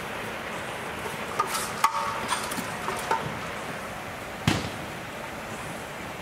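A few scattered knocks and thumps over steady background noise, the loudest one about four and a half seconds in.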